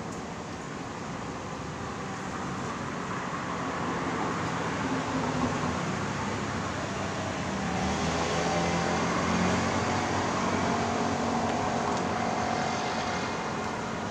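Motor vehicle engine and road noise growing louder over several seconds, holding, then easing near the end.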